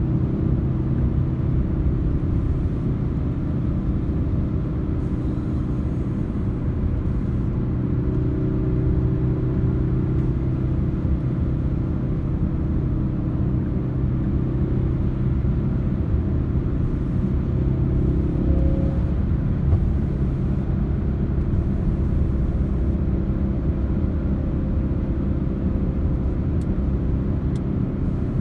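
Ford Focus RS's turbocharged 2.3-litre four-cylinder at a steady cruise, heard from inside the cabin: a continuous low engine drone mixed with tyre and road rumble.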